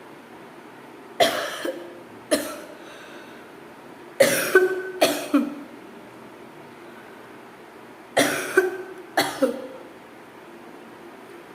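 A person coughing: two single coughs, then two quick runs of about four coughs each, about four and eight seconds in.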